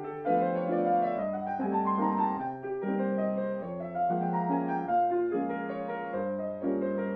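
Solo piano playing an advanced piece built around ascending minor thirds, with chords changing every half second to a second over held low bass notes.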